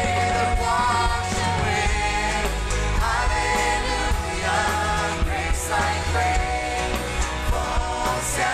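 Live worship band playing a contemporary worship song: male and female voices singing over guitar, keyboard and a strong bass line.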